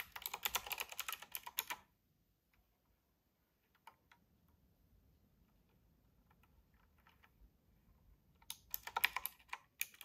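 Typewriter-style mechanical keyboard with round keycaps clicking under fast typing: a quick run of key clicks lasting under two seconds, then a few faint scattered clicks, then another quick run near the end.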